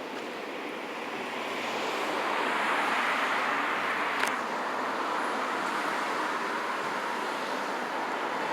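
Steady rushing noise of road traffic, swelling over the first few seconds and then holding level, with a single sharp click about four seconds in.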